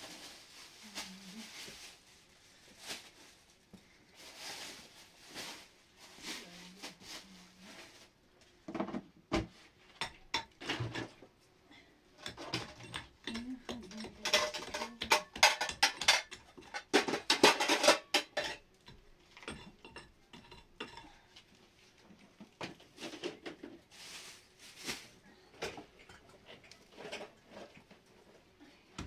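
Hard objects clinking and knocking as they are handled, on and off, with a dense run of loud clatter a little after halfway through.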